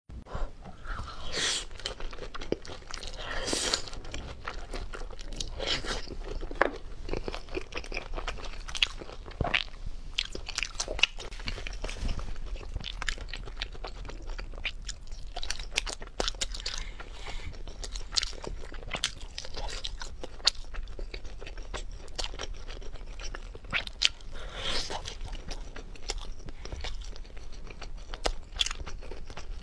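Close-up mouth sounds of a person biting and chewing crispy, spice-coated fried food from skewers: many sharp, irregular crunches with wet chewing between them.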